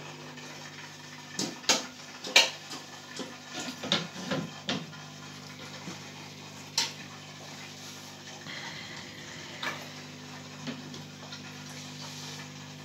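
Steady low electrical hum of an aquarium pump, with a run of sharp clicks and knocks over the first five seconds, the loudest about two and a half seconds in, and a few single clicks later.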